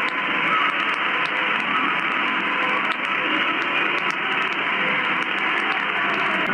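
Weak long-distance medium-wave AM signal on 1251 kHz, received in lower sideband on an AOR AR5000 communications receiver: steady hiss with frequent static crackles. The station's pre-broadcast melody sits faint under the noise.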